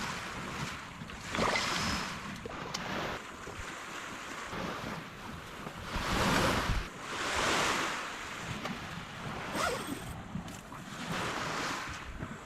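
Water washing in several uneven surges, with wind buffeting the microphone.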